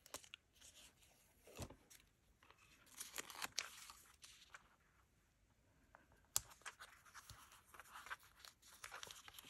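Faint rustling and crinkling of paper as a peeled sticker label and its backing are handled, with scattered light taps and clicks; the sharpest tap comes about six and a half seconds in.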